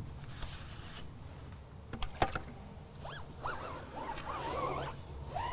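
Wheel brush bristles scrubbing a car's alloy wheel with a scratchy, zipper-like rubbing, then a sponge rubbed over the wheel and tyre. There are two sharp knocks about two seconds in, and wavering squeaks in the second half.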